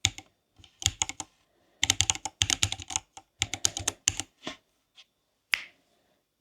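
Typing on a Silakka 54 mechanical keyboard with Greywood switches: quick keystroke clicks in uneven bursts, then a few single strokes near the end.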